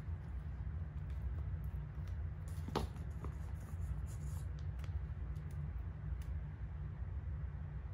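Light handling of a jewellery box and a velvet necklace display insert: soft rustling and a few small clicks, the sharpest about three seconds in, over a steady low hum.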